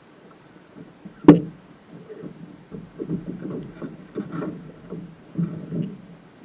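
A sharp knock on the hull of a small sailing dinghy about a second in, then a run of irregular thumps and clunks as the sailor pushes the boat off and clambers aboard, heard through the hull.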